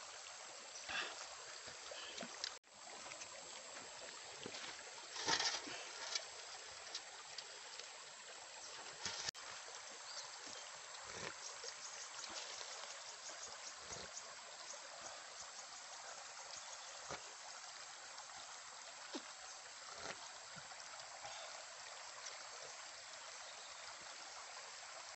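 Shallow stream running steadily, with a few short sips and slurps of coconut water drunk from a young coconut, the loudest about five seconds in.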